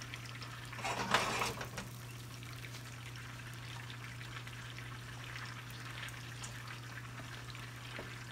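Butter and lemon juice meunière sauce boiling hard in a frying pan: a steady bubbling crackle, with a louder burst of noise about a second in. A steady low hum runs underneath.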